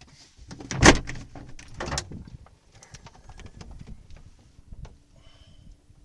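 A two-seat PW-6U sailplane's cockpit canopy is unlatched and swung open, with a loud clunk about a second in and another about two seconds in, then lighter rattles and knocks.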